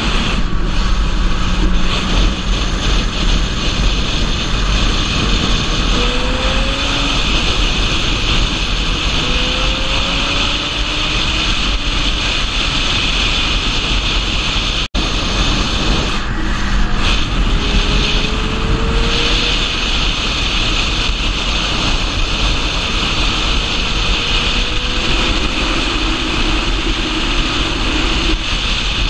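Wind rushing over the camera's microphone at highway speed on a Honda CBR1000RR, with the sportbike's inline-four engine faintly heard rising in pitch several times. The sound cuts out for an instant about halfway.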